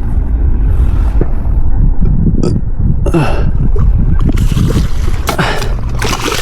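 Wind buffeting the microphone, with water splashing and churning from about three seconds in as a hooked fish is played at the water's edge.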